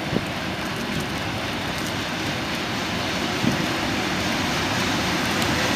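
Steady rain hiss with the rumble of an approaching electric freight train growing slowly louder.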